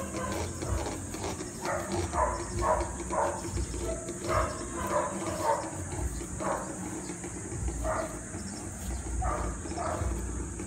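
Puppies grunting in short bursts, about two a second, while they tussle on their leashes, over a steady high insect buzz.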